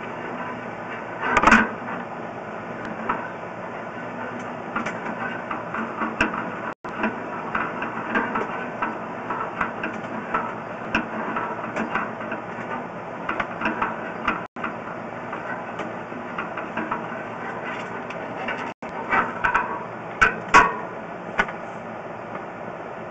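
Sewer inspection camera and its push cable being pulled back out of the cleanout, a steady rattling with irregular clicks and knocks. The loudest knocks come about a second and a half in and again around twenty seconds in.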